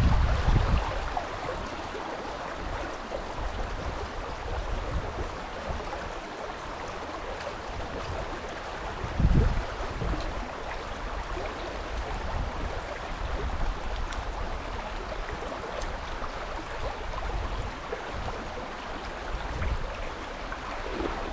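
River water flowing steadily, with low wind rumble on the microphone fading in the first couple of seconds and a single dull thump about nine seconds in.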